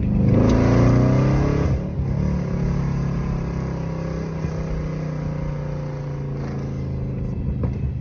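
2010 Camaro SS's 6.2-litre V8 through a Borla ATAK exhaust. It revs up over the first two seconds, then drops back to a steady, lower, even note.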